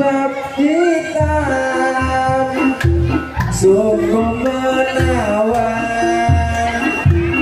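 Music: a melody with a singing voice over low drum beats, accompanying the dance.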